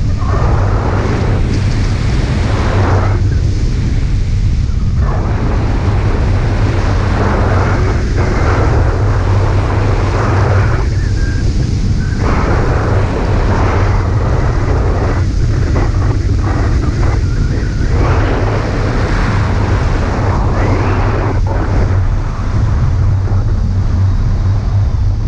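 Heavy wind buffeting the microphone of a camera mounted on a floatplane ultralight trike's wing during an engine-off glide, a steady low rumble with gusts that rise and fall.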